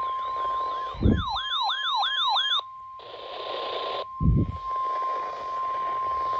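The steady single-pitch NOAA Weather Radio warning alarm tone (1050 Hz), sounded ahead of a flash flood warning broadcast. About a second in, a siren briefly wails over it in about five quick rises and falls, followed by a burst of hiss and two short low thumps.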